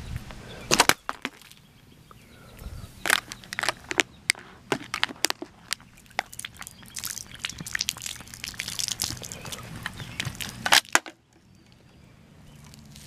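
An aluminium 7 Up can being squeezed and crumpled by hand, a string of sharp crinkling cracks in clusters, loudest about a second in and again near eleven seconds.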